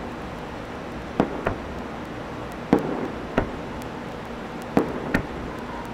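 Aerial fireworks bursting: about six sharp bangs, loosely in pairs, over a steady background hiss.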